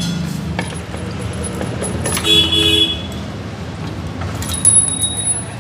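Road traffic with a vehicle horn tooting for about half a second a little over two seconds in, and a few sharp metallic clicks near the end as the aluminium side cover of a Royal Enfield engine is worked loose by hand.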